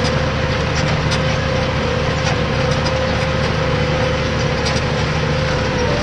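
Tractor diesel engine running steadily under load while pulling a reversible plough, heard from inside the cab, with a steady high whine over the engine drone.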